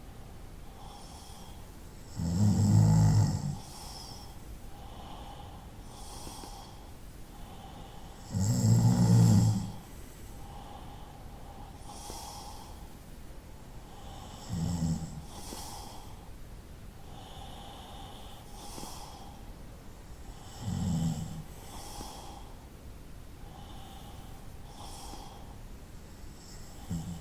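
A person snoring in slow, regular breaths, about one snore every six seconds. The first two snores are long and loud; the last three are shorter and fainter.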